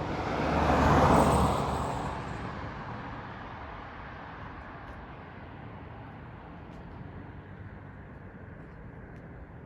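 A car passing by: its tyre and engine noise swells to a peak about a second in, then fades away over the next few seconds, leaving a low, steady background of distant traffic.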